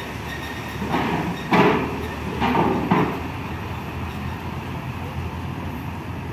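A heavy truck rolling over a ferry's steel loading ramp: a few loud metallic clanks and bangs about one to three seconds in, over a steady low engine rumble.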